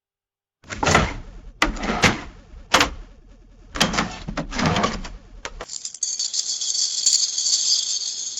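Money being handled: a run of sharp clicks and rustling, like banknotes and coins being handled, for about five seconds. Then a dense, high, rattling jingle like coins being shaken, which stops abruptly at the end.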